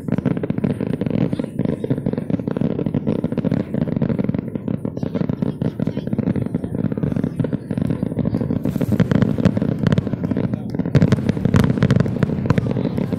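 Fireworks display: continuous crackling and popping, with sharper, louder bangs of bursting shells in the last few seconds.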